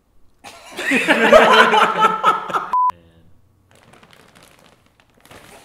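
Young men's voices exclaiming and laughing for about two seconds, cut off by a short steady censor bleep.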